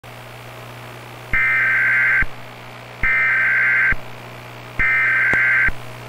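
Emergency Alert System SAME header: three bursts of warbling digital data tones, each about a second long with about a second between them, over a steady low hum.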